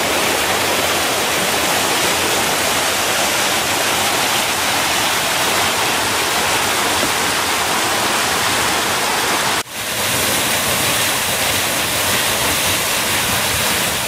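River water rushing over a small waterfall and rocky rapids: a loud, steady white-water noise, broken by a brief dip about ten seconds in.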